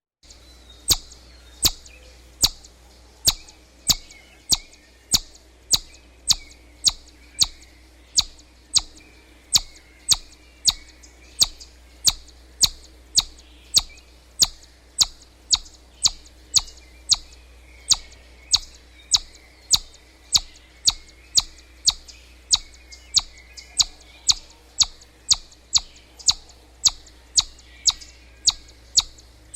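Chipmunk calling: a sharp, high chip repeated steadily, a little more than once a second, as in its alarm chipping.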